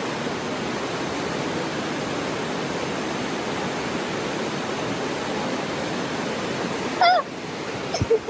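Steady rushing of a creek waterfall. About seven seconds in, a brief loud warbling squeak cuts in, the water sound drops, and a couple of short clicks follow near the end.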